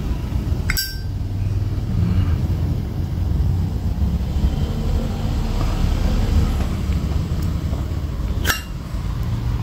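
Two sharp metallic clicks with a brief ring from a Zippo lighter's hinged lid, one just under a second in and one near the end, over a steady low hum.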